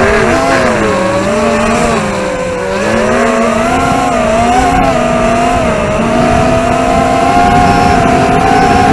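ZMR250 racing quadcopter's DYS 2204 brushless motors spinning Dalprop 5040 tri-blade props: a continuous buzzing whine that rises and falls in pitch with throttle, dipping about two seconds in and holding steadier in the second half.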